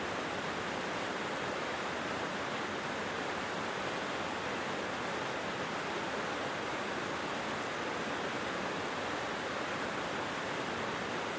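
Small mountain stream flowing, a steady, even rush of water.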